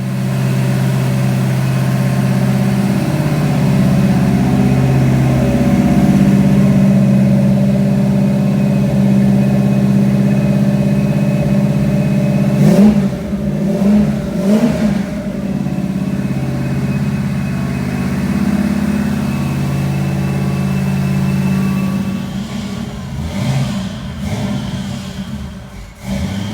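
Rebuilt 355 small-block Chevy V8 with a Comp Cams XE274H hydraulic flat-tappet cam and a 3-inch X-pipe exhaust, running at a steady fast idle to break in the new camshaft. About halfway through it is revved up and down twice, and near the end the engine speed wavers.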